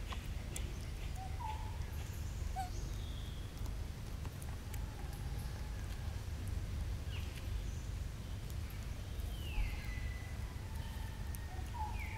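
Outdoor ambience with a steady low rumble and scattered faint clicks. Several short, high animal calls come through, a few of them sliding down in pitch.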